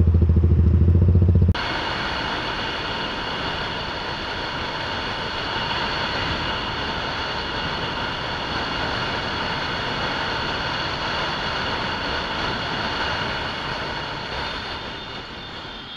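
A motorcycle engine idling with a low, pulsing throb, cut off sharply about a second and a half in. Then the steady wind noise and engine sound of a motorcycle riding along at speed, with a high steady whine in it, easing off a little near the end.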